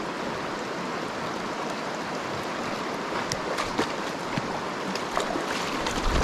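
Shallow river water running steadily over stones, with a few short splashes or knocks in the second half.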